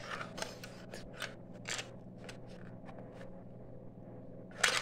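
Small plastic clicks and scrapes of a thin plastic stick being worked in the hole of a plastic toy box, stuck fast and not coming out. Several clicks in the first two seconds, then fainter, with a louder rustle near the end.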